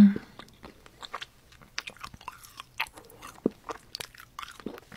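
Close-miked mouth sounds of a person chewing candy: scattered small clicks and smacks, with a short, loud low hum of the voice right at the start.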